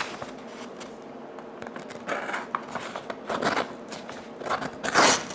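Folding pocket knife blade cutting through a sheet of paper in three short noisy strokes, about two, three and a half and five seconds in, the last the loudest.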